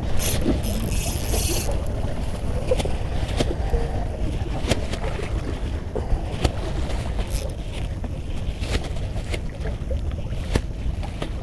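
Wind rumbling on the microphone, with a short hiss near the start and scattered light clicks.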